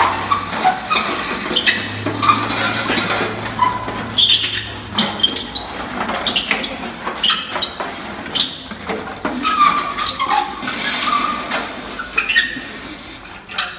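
Hands and a stick rubbing and scraping the inside and rim of a large brass pot, drawing a stream of squeaks, clicks and short metallic rings.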